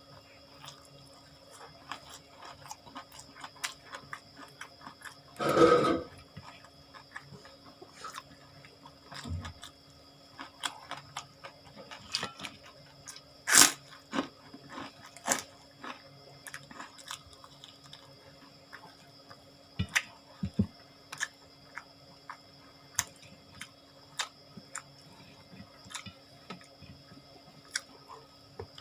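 Close-up chewing and crunching of a mouthful of raw vegetables and crackers, with many small wet mouth clicks. About six seconds in comes a louder, longer mouth sound, and there is a single sharp click about halfway through.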